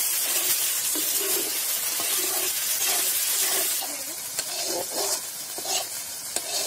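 Fish curry sizzling in an iron wok while a metal spatula stirs and scrapes it in a steady rhythm of about two strokes a second. From about four seconds in the sizzle is quieter, with a few sharp crackles from the wood fire in the clay stove beneath.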